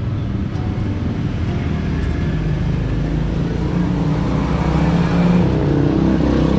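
Motor vehicle engine running close by on the road, growing louder about four seconds in, then dropping in pitch near the end as it passes.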